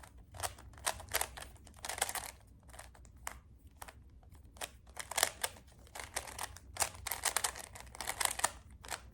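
Rubik's cube being turned quickly during a solve: its plastic layers scrape and click in short, irregular strokes, sometimes several a second. It is a cheap cube that turns roughly and noisily.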